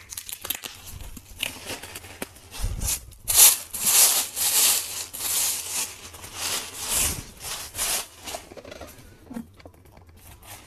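Thin plastic packaging rustling and crinkling as it is pulled open and off a paperback book, in a run of loud, irregular bursts through the middle.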